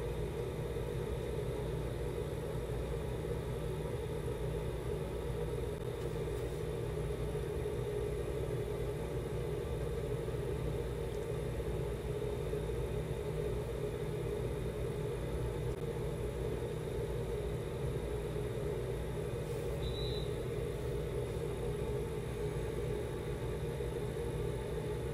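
Steady hum of a ventilation fan, with a low rumble underneath and a faint constant tone.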